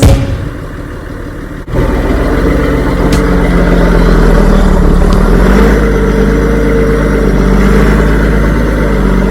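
Engine of harvest machinery running steadily, with a deep hum and a constant pitch. It jumps suddenly louder about two seconds in.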